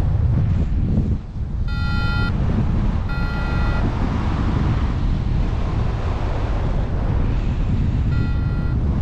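Wind buffeting the microphone in a steady low rumble. Three short, steady electronic beeps, each about half a second long, sound about two seconds in, about three seconds in and near the end.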